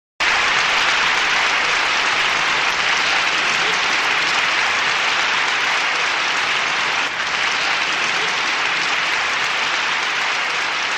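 Theatre audience applauding steadily. The clapping starts suddenly and keeps an even level.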